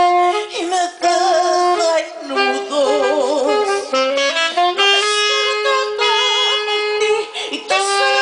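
A woman singing solo into a handheld microphone, belting long held notes with a wide vibrato and sliding between pitches.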